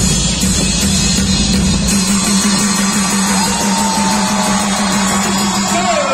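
Music playing, with a low note held throughout.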